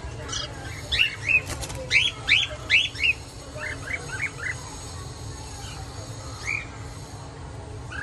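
Cockatiels chirping: a quick string of short, upward-arching calls through the first three seconds, a run of four just before the middle, and one more call later. A bird's wings flutter briefly as it flies up onto the balcony netting.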